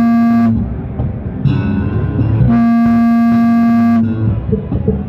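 Several electric bass guitars played together in a jam: plucked low bass lines under a long held, sustained note that rings at the start and again from about halfway through, each time for a second or more.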